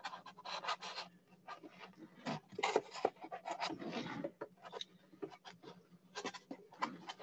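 Close handling noise from a small MDF book-nook box and its mirror panel being shifted by hand: irregular light clicks, taps and soft scrapes, over a faint steady hum.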